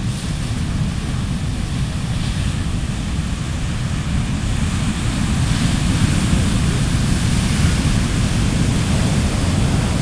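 Heavy storm surf from a distant hurricane's swell, waves breaking and crashing onto the beach in a continuous roar of rushing water, swelling a little louder about halfway through. Wind rumbles on the microphone underneath.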